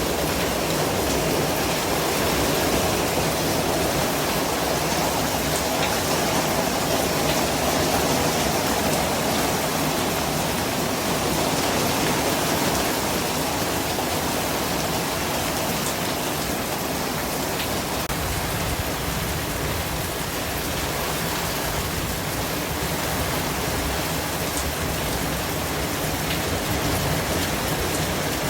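Steady white-noise track: an even, unbroken hiss from low to high pitches at a constant level, with a few faint ticks scattered through it.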